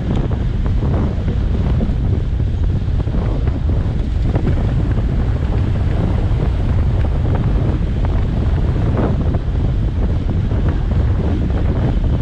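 Wind buffeting an action camera's microphone on a fast road-bike descent: a steady low rumble that covers everything else.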